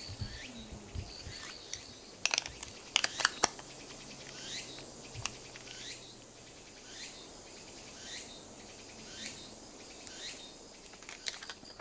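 High chirping calls, each falling in pitch, repeated about once a second, with a few sharp clicks about two to three seconds in.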